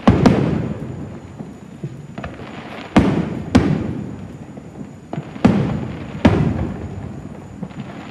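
Aerial firework shells bursting at a distance: six sharp booms, coming in three pairs about two and a half seconds apart, each trailing off in a long rumble.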